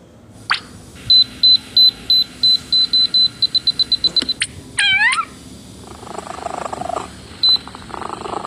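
A run of short, high electronic beeps, all on one pitch, coming faster and faster for about three seconds. Then comes a swooping sound that falls and rises again, and one more beep near the end.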